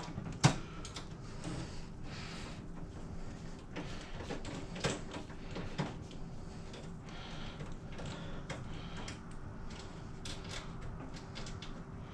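Scattered clicks, knocks and scrapes of a desktop computer's drive bay being pulled up and handled inside the case, with one sharp knock about half a second in the loudest.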